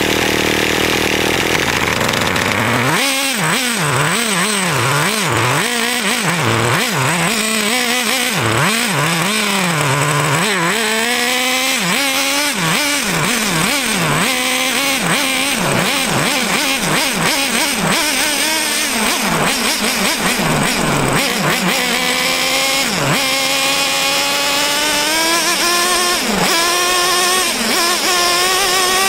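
A small high-revving engine. Its pitch swoops up and down about once a second for several seconds, then holds higher, and near the end climbs steadily as it speeds up.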